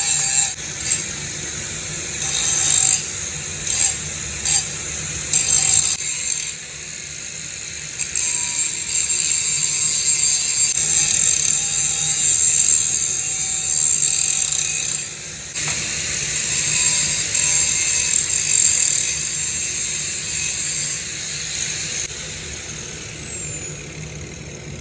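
Angle grinder grinding the edges of a metal plate to prepare it for welding: several short bursts of contact at first, then one long steady grind that eases off about 22 seconds in.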